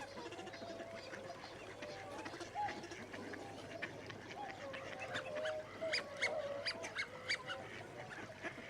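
Birds calling, with a run of short, sharp calls in the second half.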